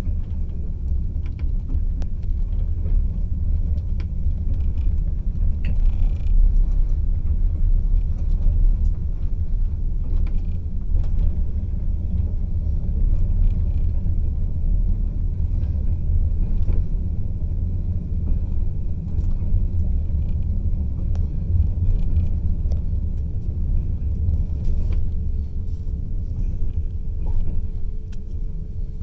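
Steady low rumble of a moving passenger train, with faint scattered clicks.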